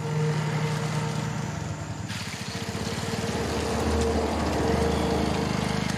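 Motorcycle engine running as the bike rides along a muddy dirt track, with tyres splashing through water and mud from about two seconds in.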